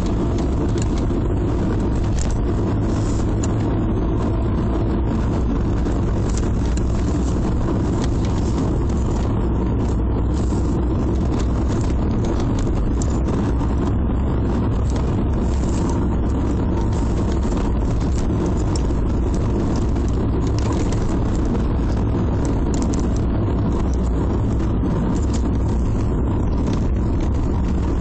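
Steady engine and road noise heard inside a moving Volkswagen Passat's cabin: a constant low rumble with a fainter hiss above it.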